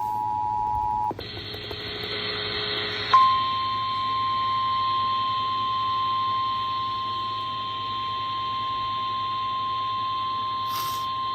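Emergency Alert System two-tone attention signal over an FM broadcast, cutting off about a second in. After a couple of seconds of hiss, a single steady warning alarm tone of about 1050 Hz starts about three seconds in and holds unchanged. This tone is the NOAA Weather Radio style alert that comes before a severe weather warning.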